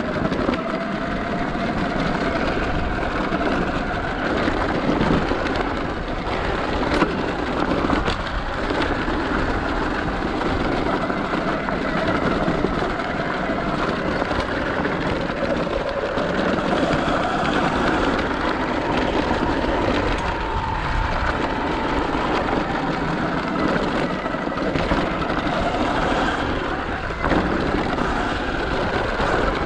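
Sur Ron X electric dirt bike coasting downhill with regenerative braking recharging the battery: a steady, loud noise of the ride with a faint whine that glides up and down now and then.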